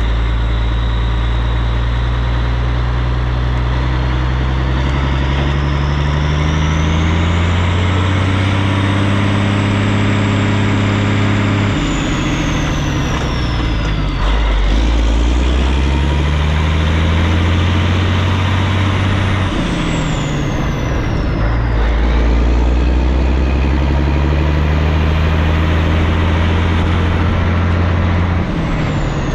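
Truck engine pulling hard through the gears, apparently while towing a loaded trailer: the engine note climbs, drops at each shift, and climbs again several times, with a high whine rising and falling along with it.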